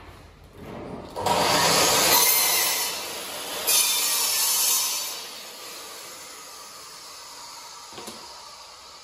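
Laminate panels sliding and scraping against each other while being handled, in two bursts of about a second each, the second brighter and hissier, then quieter.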